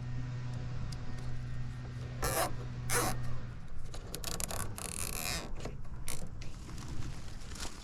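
Short scraping and creaking handling noises over a steady low electrical hum, which cuts out about three and a half seconds in.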